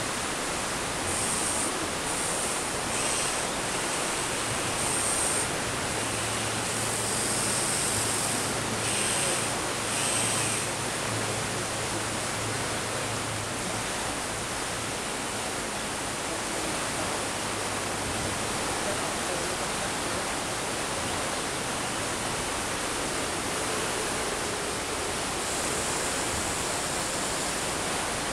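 Steady rushing of flowing water, with the faint high whir of small RC electric motors from the excavator and dump truck coming and going over it, and a low hum in the middle stretch.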